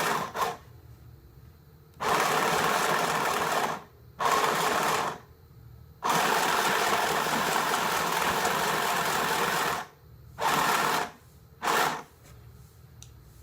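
Portable mini sewing machine running in repeated bursts, starting and stopping about six times. The longest run lasts nearly four seconds in the middle, and two short runs come near the end.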